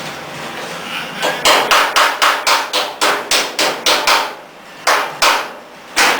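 Hammer blows on the sheet-metal body of a 1963 Chevy C10 truck: a fast run of about a dozen evenly spaced strikes, roughly four a second, then three slower single blows. A steady hiss comes before the first strike.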